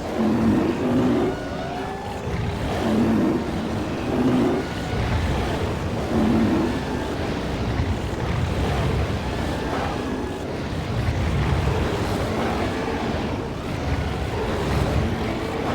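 Stampede sound effect: a continuous low rumble of many animals running, with short animal calls over it, most often in the first half.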